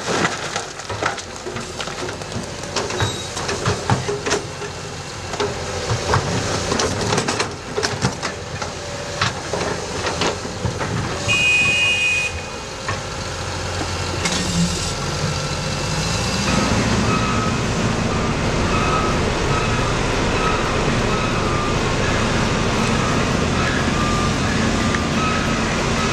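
Broken limestone clattering and knocking as an excavator bucket tips it into a JCB articulated dump truck's steel body. In the second half, the dump truck's diesel engine runs steadily while a reversing alarm beeps about once a second.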